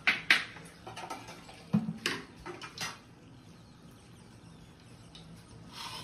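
Steel plates and small bowls clinking and knocking as food is plated, a handful of sharp knocks in the first three seconds, then only quiet kitchen background.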